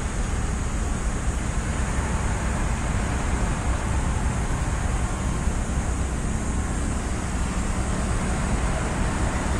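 Steady low rumble of motor traffic, unbroken and even in level.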